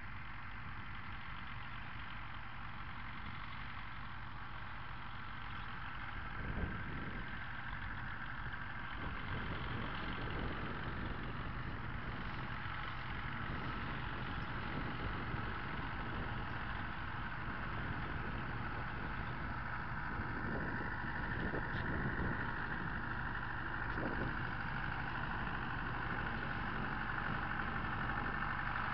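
Farm tractor engine running steadily under load while pulling a hay rake to windrow cut alfalfa, growing gradually louder as it comes closer.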